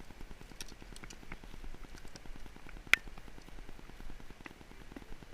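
Rain pattering in scattered light ticks, with one sharp click about three seconds in.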